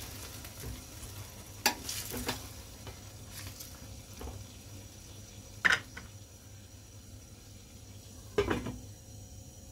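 A spatula stirring mung beans and chicken in a stainless steel pan over a faint steady sizzle, with several sharp clinks of utensil on metal, the loudest just after halfway. Near the end a stainless lid is set down on the pan with a clatter.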